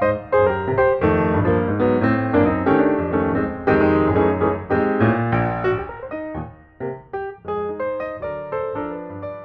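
Background piano music: a steady run of struck notes and chords that grows quieter over the last few seconds.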